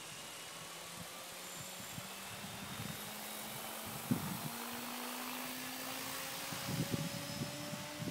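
Electric SAB Goblin 500 RC helicopter spooling up, its motor and rotor whine rising slowly in pitch and getting louder. Low rumbling buffets come in about four seconds in and again near the end.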